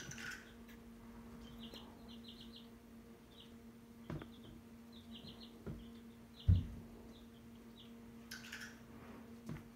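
Young chicks peeping in short runs of quick, high peeps, over a steady low hum. A few soft knocks, with one louder dull thump a little past halfway.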